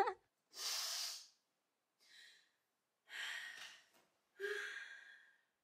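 A woman's breaths: three loud breaths about a second apart and one faint one, the last ending in a short voiced sigh.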